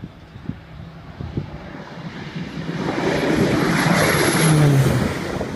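Single-engine turboprop water bomber passing low overhead just after takeoff. The engine and propeller noise swells over a couple of seconds, peaks with a drop in pitch as the aircraft goes over, then begins to fade.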